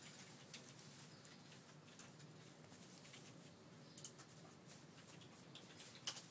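Faint rustling and light clicks as a kitten paws, claws and bites at a coat hanger on a fabric bedspread, with one sharper click near the end.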